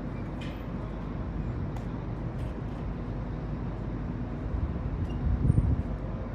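Steady outdoor rumble of road traffic, swelling louder about five seconds in as a vehicle passes.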